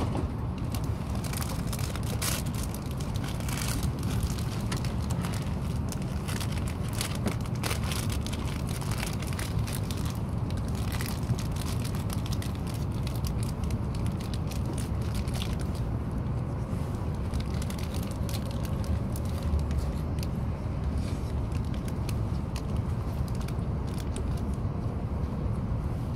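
E5 series Shinkansen heard from inside the passenger cabin as the train pulls out of the station and gathers speed: a steady low rumble with scattered clicks and crackles, most frequent in the first half.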